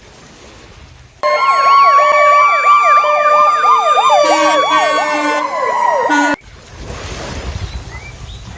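Ambulance siren sounding: several overlapping rising-and-falling wails over a steady tone. It starts about a second in and cuts off suddenly about five seconds later, leaving a low rushing noise like wind.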